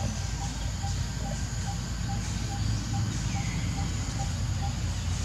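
Outdoor ambience: a steady low rumble under a light hiss, with a short high note repeated about twice a second that stops near the end.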